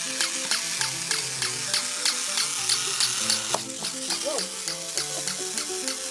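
Battery-powered plush somersaulting terrier toy running, its motor and gears whirring with a rattling hiss as it tumbles, under music with a melody and a quick steady beat of about four ticks a second.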